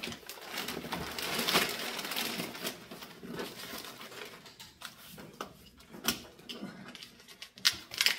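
Clear plastic bag crinkling and rustling as hands dig into it and lift out a packed carry bag, then a few light knocks and clicks of items being handled in the second half.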